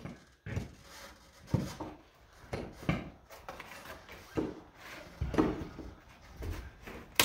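A hand tool knocking and scraping against plywood and wooden framing in irregular strokes, about one or two a second, as a panel is worked loose.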